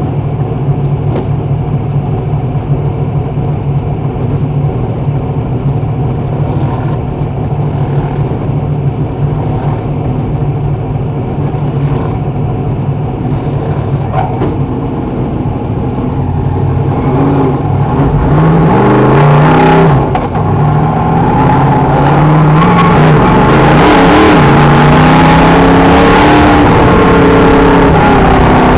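Dirt modified race car's V8 engine heard from inside the cockpit, idling steadily, then from about two-thirds of the way through it revs and pulls away. It gets louder, and its pitch climbs and drops as the throttle is worked.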